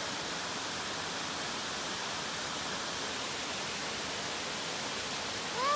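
Small woodland waterfall cascading over rocks: a steady, even rush of falling water.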